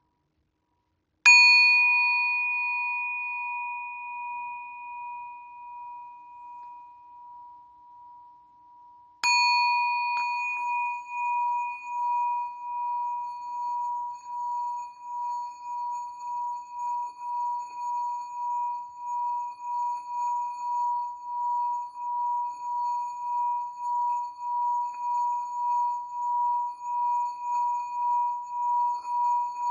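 Small Tibetan singing bowl tuned to about 888 Hz, struck and left to ring with a clear tone and a few higher overtones. It fades over several seconds, is struck again about nine seconds in, and then keeps ringing with a steady pulsing waver that swells slightly toward the end.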